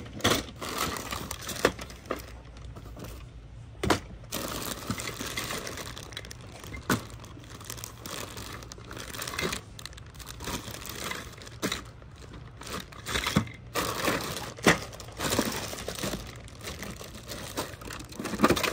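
Crinkling and rustling of things being handled, with scattered sharp clicks and knocks.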